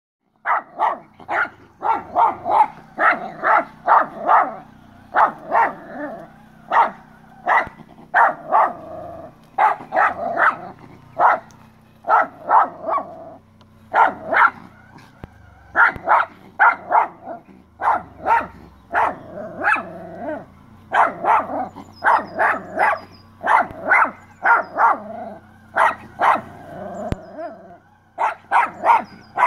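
Jack Russell terrier barking over and over in quick runs of short, sharp barks with brief pauses between: alarm barking at an unfamiliar robotic lawn mower.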